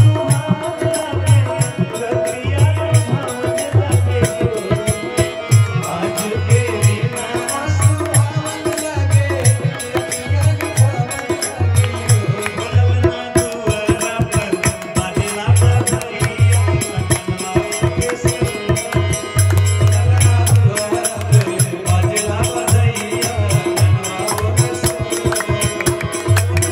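Harmonium playing sustained chords under a steady beat of a hand drum and jingling small percussion: live Hindi devotional folk music.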